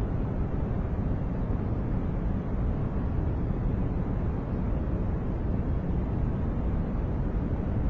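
Continuous steady noise of the sort used as white noise for focus and sleep, deep and low-heavy rather than hissy, with no changes in level.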